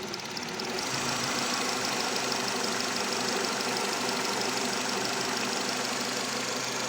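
Nissan Terrano 2-litre petrol engine idling steadily with a faint rapid ticking and no squeak. The oil filler cap is off, relieving the crankcase vacuum that a faulty crankcase ventilation valve builds up.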